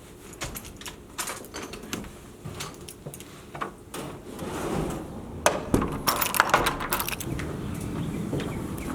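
Irregular clicks and knocks of small objects being handled, with a quick cluster of sharper clicks and clatter a little past halfway.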